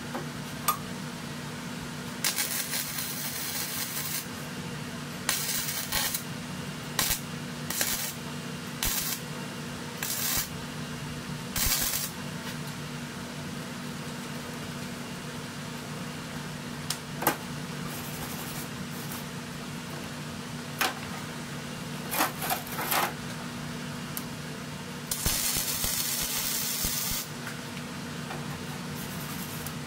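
MIG welder welding a steel flange piece onto an exhaust manifold: about ten short bursts of arc hiss, from half a second to two seconds each, the longest near the start and near the end, with a few sharp clicks between them over a steady low hum.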